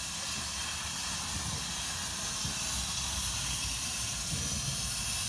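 Steam hissing steadily from a 1912 Baldwin-built steam tank locomotive as it vents steam.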